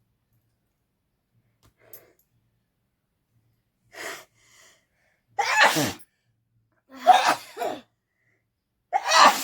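A person sneezing three or four times in quick succession, starting about halfway through, each sneeze short and sharp. The sneezes are set off by poking something into the nose.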